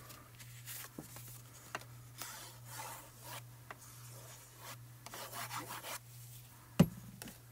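Faint rubbing and scraping of a liquid glue bottle's nozzle drawn along cardstock as glue is squeezed out in lines, with paper handling. A sharper click comes near the end.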